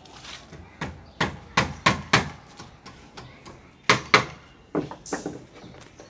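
Hammering: a quick run of about five sharp knocks, a pause of over a second, then about five more.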